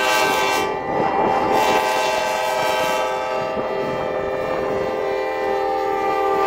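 Grand Canyon Railway F40FH diesel locomotive's air horn sounding for a grade crossing, one long blast held steady, several notes at once as a chord, over the rumble of the approaching train.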